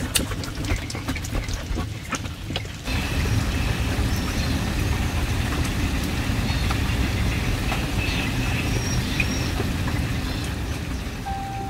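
Light knocks and clatter of plastic baskets and styrofoam boxes being handled, then from about three seconds in, steady rain falling on a pond.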